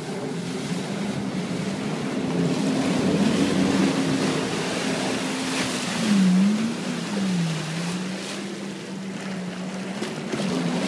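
Jet ski engines running at speed over water rushing and splashing, with wind on the microphone. The engine pitch drops and climbs back twice a little past the middle, as the throttle eases and opens again. A louder rush of spray comes about six seconds in, as a jet ski passes close.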